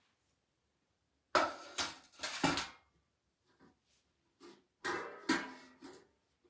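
Round metal puja plates being set down and clattering against one another. There are two clusters of clanks with a short metallic ring, the first about a second and a half in and the second near the end.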